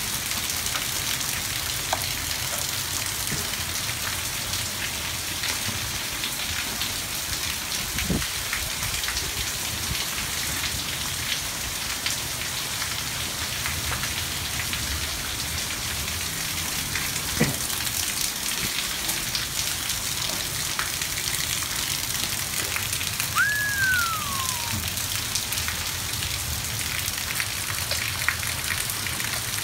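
Steady heavy rain falling as a hailstorm lets up, with scattered sharp ticks of hailstones striking. About two-thirds of the way through comes one brief whistle that falls in pitch.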